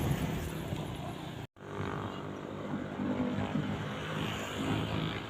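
Road traffic going by, a steady noisy rumble of passing vehicles, with a sudden cut to silence for a moment about one and a half seconds in.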